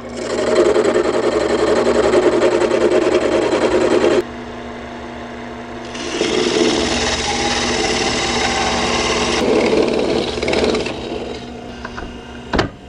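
Fine-toothed hand saw cutting through a wooden lure blank in rapid short strokes, in two bouts with a pause of about two seconds between them. A few sharp knocks near the end.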